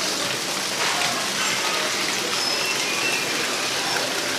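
Steady rushing hiss of falling water, with a few faint short high bird chirps over it.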